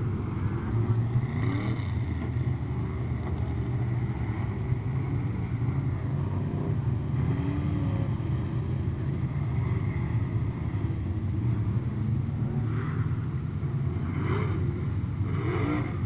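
A field of street stock race cars running together around the oval after the green flag: a steady, dense rumble of many engines at once.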